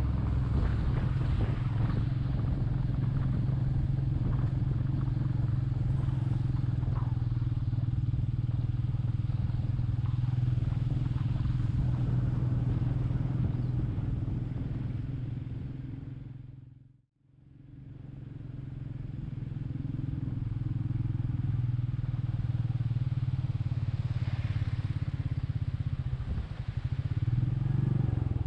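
Royal Enfield Meteor 350's single-cylinder engine running steadily while riding. About two-thirds of the way through, the sound fades out to silence and fades back in.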